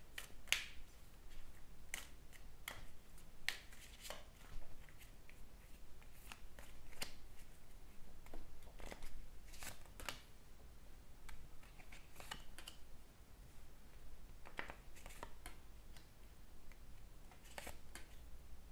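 A deck of playing cards being shuffled and dealt out by hand, giving irregular soft snaps and flicks.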